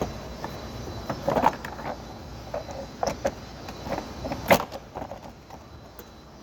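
Scattered knocks, clicks and rustling of hands working a car's rear seat and plastic interior trim, with one sharper knock about four and a half seconds in.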